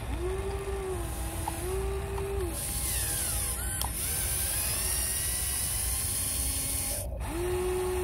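Electric motors of a Huina radio-controlled excavator whining as they drive the boom, arm and bucket into sand. The whine comes in spurts that rise and fall in pitch, with a long stretch at the start, several short ones in the middle and another near the end.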